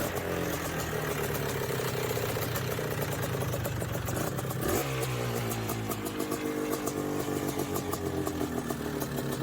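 An engine running steadily, its pitch shifting about halfway through.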